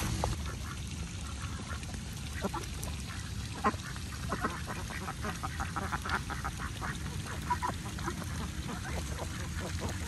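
A flock of domestic ducks quacking: scattered quacks, then a quick run of them about halfway through, over a steady low rumble.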